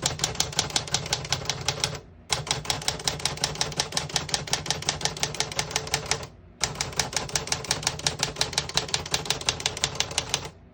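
1977 Underwood 319 portable typewriter being typed on at an even pace, about six keystrokes a second, each a sharp clack of the typebar striking the platen. The typing stops briefly twice, about two seconds in and a little past six seconds in.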